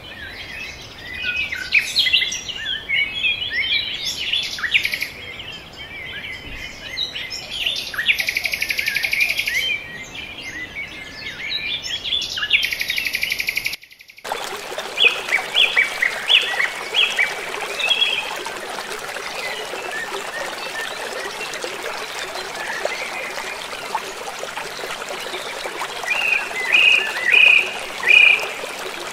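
Birds chirping and singing, with two buzzing trills of about two seconds each. About halfway through, the sound cuts abruptly to a river rushing steadily, with more bird chirps over it.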